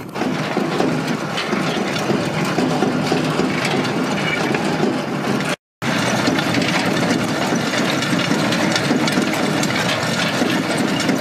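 Tractor diesel engine running close by, with steady mechanical clatter from the seed drill. The sound breaks off for a moment about halfway and then resumes.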